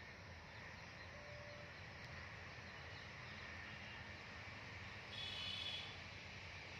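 Faint woodland ambience with a steady background hiss, and one short, high, buzzy animal call a little after five seconds in.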